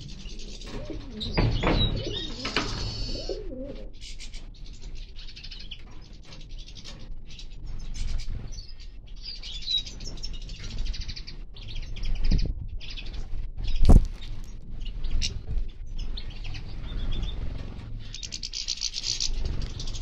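Small finches, European goldfinches among them, chirping and twittering, with several brief wing flutters as birds fly down to a drinker; the loudest flutter comes about two-thirds of the way through.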